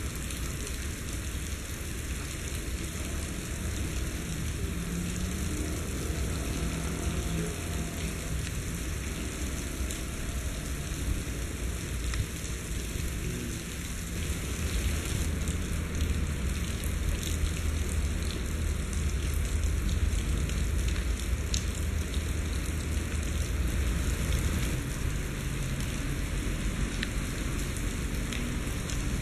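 Steady heavy rain hissing, with the low rumble of diesel-electric trains in the distance; the rumble grows louder from about halfway through as a locomotive approaches.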